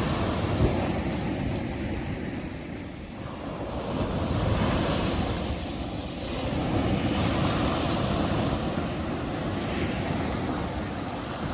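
Sea waves breaking and washing up a sandy beach, the surf swelling and easing every few seconds, with wind rumbling on the microphone.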